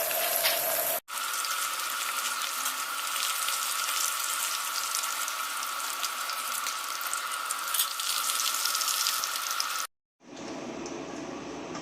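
Water running steadily into a sink or basin, with a steady ringing note in the splash. It breaks off abruptly about a second in and again near the end.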